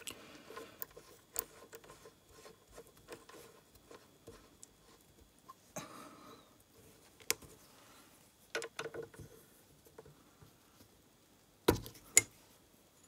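Light metallic clicks, taps and rubbing as a drill bit is changed in the chuck of a small mill-drill, with two sharper knocks near the end.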